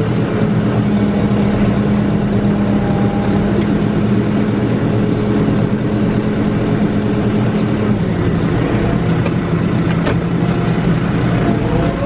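Tractor engine running steadily, heard from inside the cab, as the tractor pulls a roller that packs down snow. The engine note drops slightly about eight seconds in.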